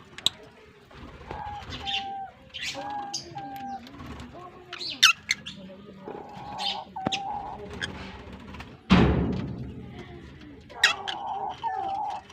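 A colony of African lovebirds chirping and calling: many short, shrill chirps with some held notes. A loud burst of rushing noise comes about nine seconds in.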